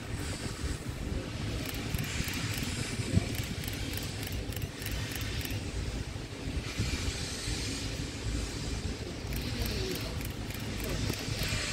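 Hissing steam from a distant 8620-class steam locomotive, coming and going in several gusts over a steady low rumble, with one sharp knock about three seconds in.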